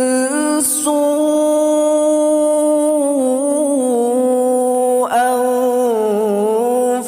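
A male voice reciting the Quran in melodic tilawah style, holding long ornamented notes with a wavering melisma in the middle. A short break about five seconds in before a new phrase starts.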